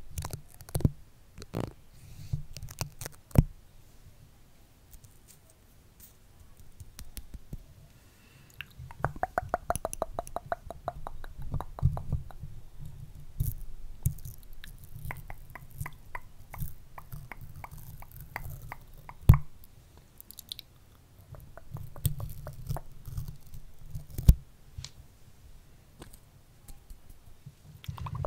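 Close-miked crackling and clicking of stickers being pressed onto and peeled off a microphone. There is a run of rapid, evenly spaced crackle about a third of the way in, and a few sharp, loud clicks.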